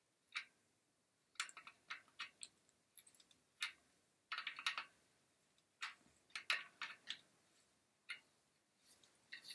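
Light metal clicks and clinks of two wrenches being fitted and turned on the axle nut of a Thule Chariot trailer wheel hub, irregular, with a short flurry around the middle. The nut is being tightened to take the sideways play out of the wheel bearings.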